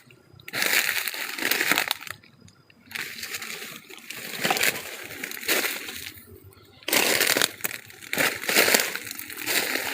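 Footsteps crunching on dry leaf litter and brushing through undergrowth, in uneven rustling stretches that are loudest in the last few seconds.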